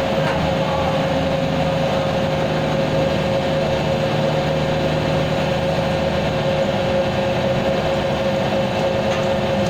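An engine idling steadily, with an even low hum and a constant high whine over it.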